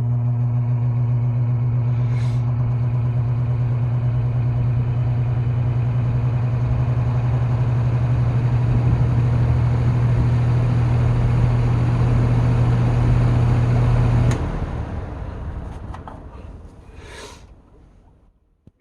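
Penney's Lakewood SPXC 20-inch box fan running on medium speed, with a steady motor hum and rushing air. About 14 seconds in the hum cuts off with a click and the blades coast down, the air noise fading away over about four seconds.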